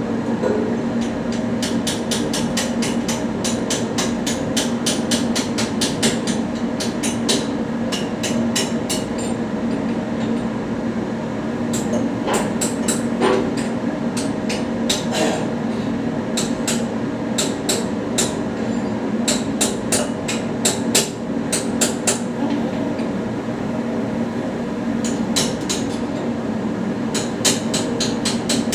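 Runs of rapid, light tapping on metal, several strikes a second in clusters, over a steady machine hum.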